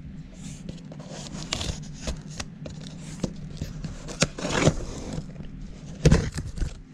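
Cardboard box and plastic packaging being handled and pulled open: irregular scraping and rustling, with a louder drawn-out scrape about four seconds in and a sharp knock about six seconds in.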